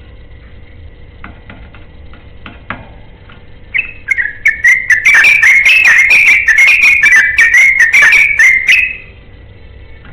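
Yellow-vented bulbul (trucukan) singing one long, fast run of bubbling, warbling notes, starting about four seconds in and stopping about nine seconds in. A few faint clicks come before it.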